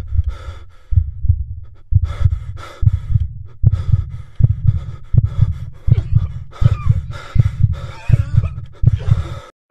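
Heartbeat sound effect: paired low thumps a little under a second apart, under fast heavy breathing and gasps. It cuts off suddenly near the end.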